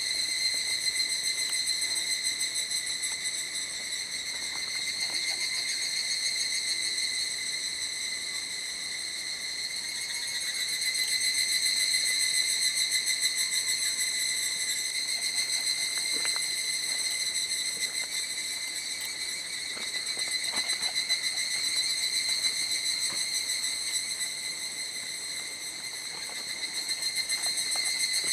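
Cicadas singing in a continuous high, buzzing chorus that swells and fades every several seconds.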